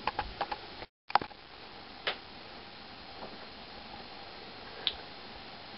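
A few sharp little clicks over a steady low hiss, with the sound cutting out completely for a moment about a second in.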